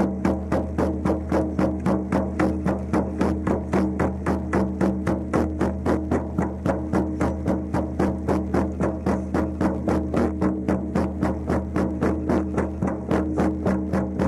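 Many shamanic frame drums beaten together in a steady, even rhythm of about three beats a second, over a steady low drone.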